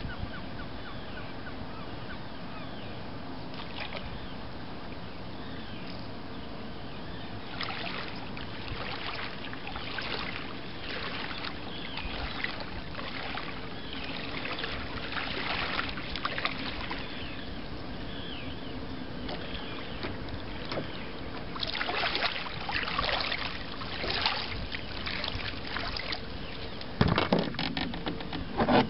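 Shallow salt water splashing and sloshing in irregular bursts around a wading angler and a freshly landed striped bass, over a steady low hum. There are a couple of loud bumps near the end.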